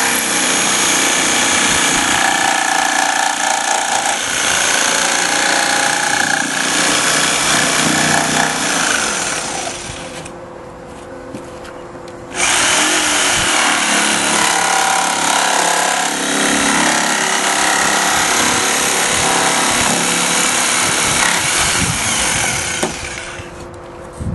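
Corded jigsaw with a small blade cutting an opening through a plastic car bumper cover along a metal template; its motor runs at a steady pitch. The cutting stops about ten seconds in, starts again a couple of seconds later, and stops again shortly before the end.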